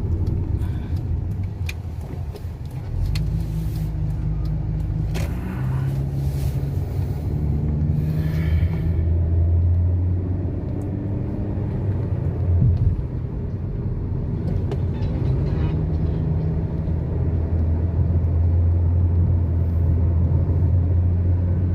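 Car being driven: a steady low engine and road rumble, with the engine note shifting and rising a few times as it pulls away and changes speed.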